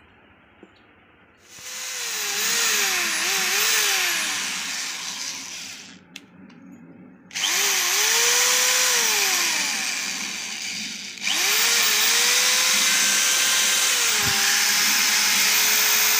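Eastman EKSD-10 corded electric screwdriver spinning with an empty chuck, switched on three times. Its motor whine rises and falls in pitch as the trigger is squeezed and eased, with a short stop about six seconds in and a couple of clicks in the gap. The last run holds a steadier pitch.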